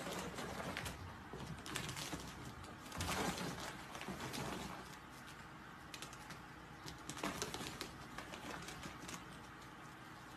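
Ferrets scrambling through a clear, wire-ribbed plastic hose: irregular clicking and scratching of claws on the ribbed plastic, with louder clatters about three seconds in and again about seven seconds in.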